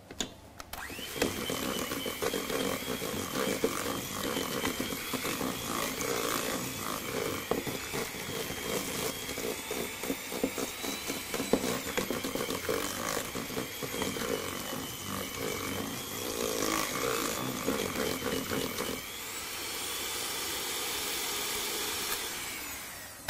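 Electric hand mixer running, its twin beaters whisking egg yolks into creamed butter and sugar in a stainless steel bowl, with a steady motor whine over the rattle and scrape of the beaters in the mixture. Late on the rattling drops away and the motor whirs smoothly for a few seconds, then switches off near the end.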